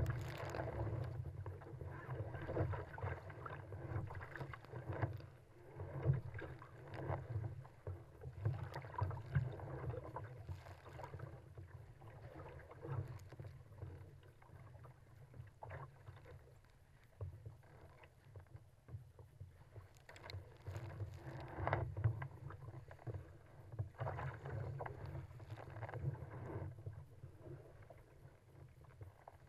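Sea water rushing and splashing against a kayak's hull as it is paddled downwind through choppy waves. The surges come and go irregularly, about one every second or two, over a low rumble.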